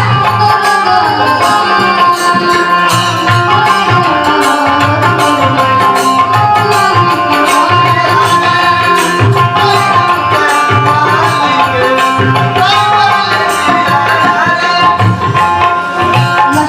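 Live Indian folk stage music: a tabla-style hand drum keeps a steady beat under a melody line that holds and bends its notes.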